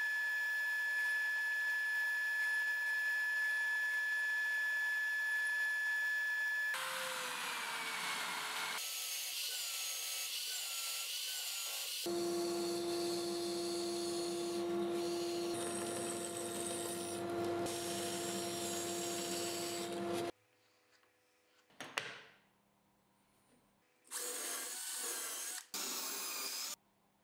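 Band saw running and cutting wheel blanks, first from MDF and then from plywood, with a steady motor hum under the cutting, which stops about two-thirds of the way in. Near the end, a cordless drill boring into plywood discs in two short bursts.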